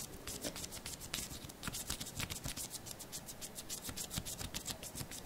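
Close-up hand sounds: rapid, irregular fine crackling and rubbing as fingers sweep and fan a dark, feathery object right by the microphone.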